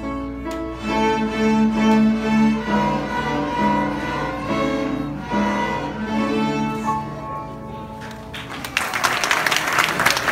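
A small ensemble of children's violins playing a piece in held notes; the playing stops near the end and the audience breaks into applause.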